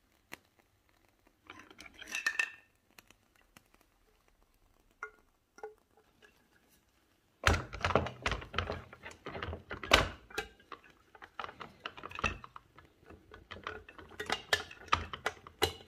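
Metal clinks, taps and knocks as a tinplate Bassett-Lowke Enterprise live-steam model locomotive is handled on its stand. A few scattered clicks come first, then a dense run of clattering starts about halfway through.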